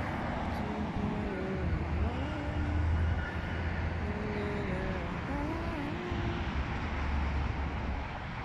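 Steady city road traffic noise from cars passing on a nearby road, with a heavy low rumble throughout.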